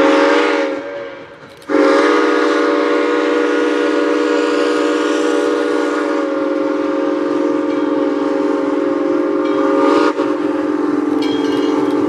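Southern Railway 630's Central of Georgia six-chime steam whistle sounding a short blast of about a second, then, after a brief pause, a long steady blast held for about ten seconds, a chord of several notes.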